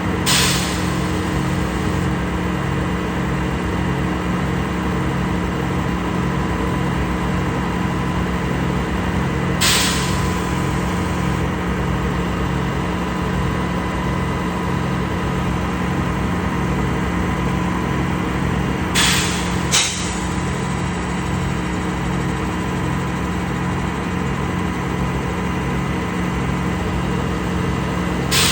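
Truck-mounted concrete pump running steadily, its engine carrying a regular pulse of about two beats a second. Short bursts of hiss come about every ten seconds, two of them close together.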